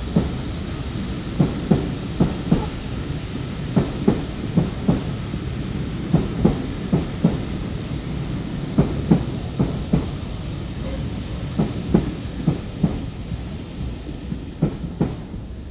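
A train of passenger coaches rolling past, their wheels beating a clickety-clack over the rail joints in groups of two or three clicks over a steady rumble. The sound fades near the end.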